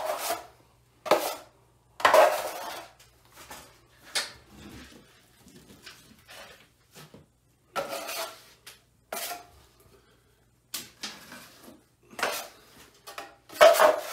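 Steel drywall knife scraping joint compound off the edge of a metal mud pan and drawing it across a ceiling joint, in a string of short separate scrapes with pauses between them, the loudest about two seconds in and near the end.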